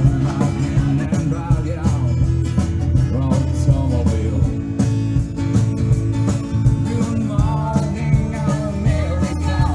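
Live country band playing an up-tempo song, with a steady drum beat over bass and guitars.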